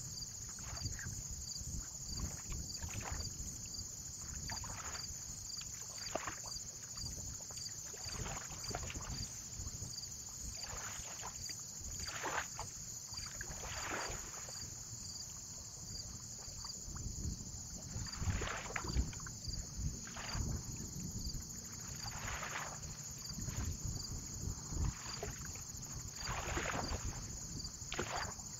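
Water lapping and splashing in irregular swishes every second or two, with a low rumble of wind on the microphone underneath.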